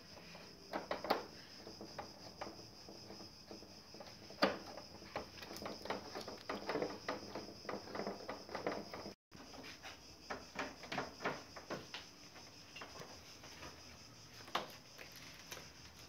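Scattered small clicks and taps of fingers working a screw and handling the plastic front panel of a split air conditioner's indoor unit, over a faint steady high-pitched hiss. The sound cuts out briefly about nine seconds in.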